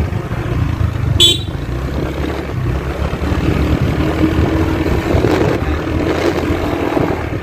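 Motorcycle engine running at low speed while being ridden, a steady low rumble. A short high-pitched beep comes about a second in.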